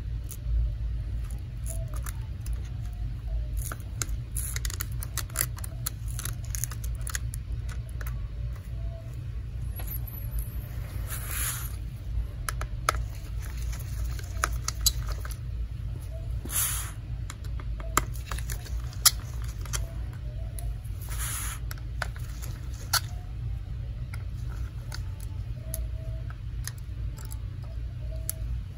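Small clicks, scrapes and rustles of gloved hands working a precision screwdriver and handling small parts inside an opened laptop, with a few brief louder rustles, over a steady low hum.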